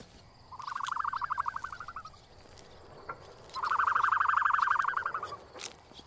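Two rapid, evenly pulsed animal trills, each just under two seconds long, the second louder.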